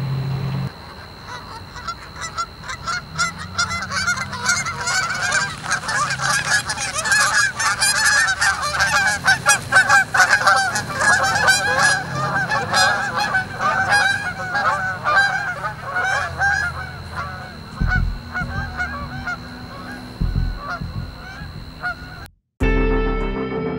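Canada geese honking, many overlapping calls that build to a dense chorus in the middle and thin out toward the end. A guitar tune starts about a second before the end.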